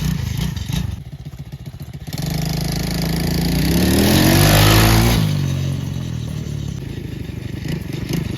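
ATV engine dropping to a low run, then revving up for about three seconds, with a hiss over the top at the peak, before suddenly easing back to a steady lower speed.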